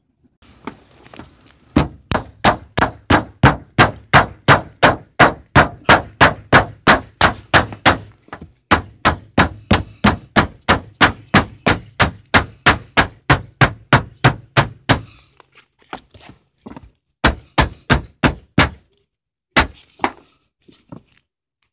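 Claw hammer striking the edge of metal roof valley flashing: a fast, steady run of about three sharp metallic blows a second for some thirteen seconds, then a few scattered blows near the end. The hammering folds a raised lip along the flashing so the tiles sit off the metal and water runs underneath.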